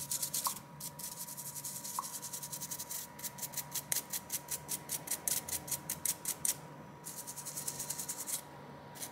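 Toothbrush bristles scrubbing the loudspeaker module of a Blackview BV9800 Pro phone in quick back-and-forth strokes, several a second, in runs broken by brief pauses. The brushing clears stones and dust from the speaker.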